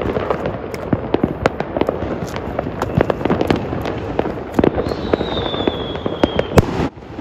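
Firecrackers and fireworks going off in quick succession, a dense crackle of many sharp pops. From about five seconds in there is a falling whistle, and near the end comes one loud bang.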